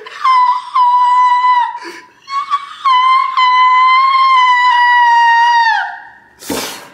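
A man's high-pitched falsetto squeal of anguish, held on one note in two long stretches, the second sliding down in pitch as it ends, then a sharp breath near the end.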